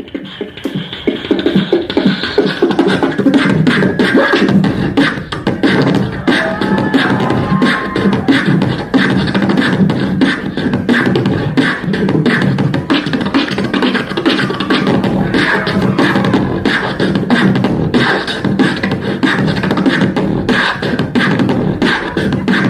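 Live beatboxing in a fast drum-and-bass style: rapid, dense vocal kick, snare and hi-hat strokes over a steady low bass hum, kicking in right at the start.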